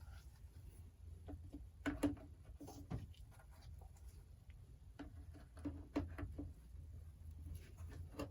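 Light clicks and knocks of small plastic and metal parts being handled and slid into place on an Echo PB-755T backpack blower during reassembly, a few sharper taps about 2, 3 and 6 seconds in, over a low steady hum.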